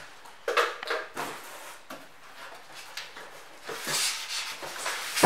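Packaging being handled as parts are taken out of a box: irregular rustling and scraping with scattered clicks and knocks, and one sharp knock near the end that is the loudest sound.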